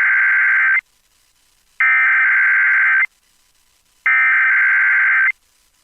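NOAA Weather Radio Emergency Alert System SAME header: three identical bursts of rapid warbling digital data tones, each a little over a second long with about a second's pause between them. These bursts mark the start of a new alert message.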